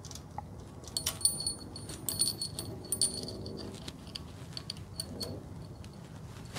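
Steel timing chain of an Ecotec engine clinking and jingling as it is handled and fed onto the cam and crank sprockets. It is a run of light metallic clinks with a ringing tone, thickest from about a second in to about three seconds in, with a few more near five seconds.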